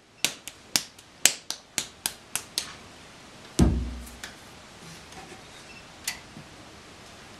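Hands patting and slapping a ball of clay into shape, a sharp slap roughly every quarter second, then a heavy thud about three and a half seconds in as the clay is slammed down onto the potter's wheel head.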